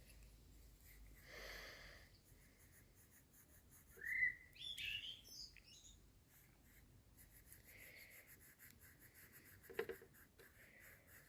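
A short whistled call rising in pitch about four seconds in, over a quiet background, with a sharp click near the end.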